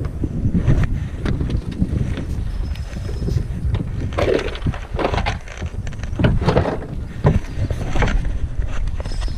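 Wind buffeting the microphone with a steady low rumble, over water sloshing and splashing, with several louder splashes between about four and eight seconds in.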